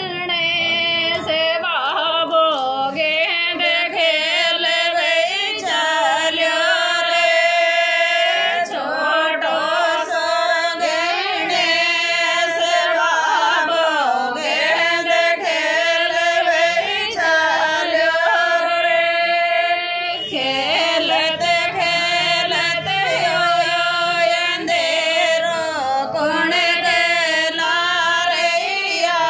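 A woman singing a song, her voice sliding and wavering through long held notes without a break.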